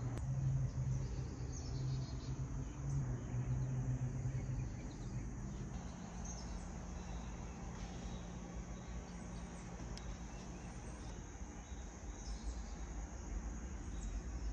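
Outdoor ambience: a steady low hum, stronger for the first few seconds, with faint insect chirping.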